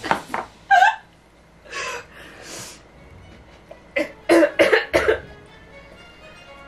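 A woman coughing in short fits, with a quick run of sharp coughs about four seconds in, her throat burning from the spicy fire-noodle broth she has just drunk.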